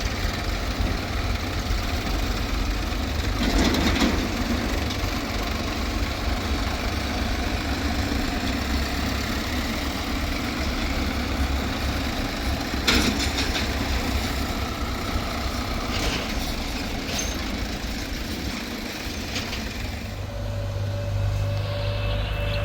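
Diesel engine of a backhoe loader or tractor running steadily, with a loud thump about three and a half seconds in and another about thirteen seconds in.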